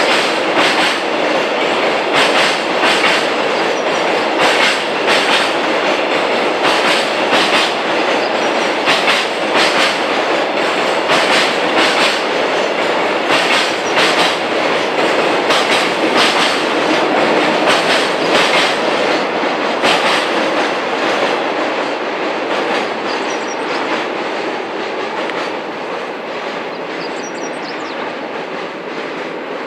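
Slow freight train's wagons rolling across a railway bridge, wheels clacking over the rail joints in a steady clickety-clack over a running roar, growing quieter over the last several seconds as the train moves away.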